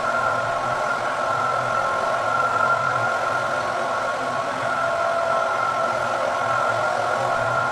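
Rotary floor buffer running steadily as it screens a hardwood floor, its abrasive screen scuffing the old polyurethane finish for a recoat. A constant motor hum with an even whine over it, unchanged throughout.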